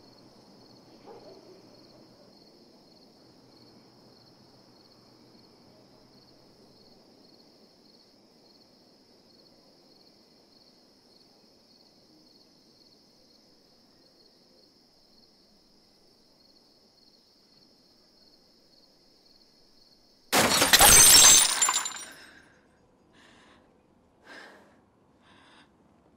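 Glass shattering in one sudden loud crash about twenty seconds in, followed by a few small pieces clinking down. Before it there is only a faint low hum and a steady, finely pulsing high chirring.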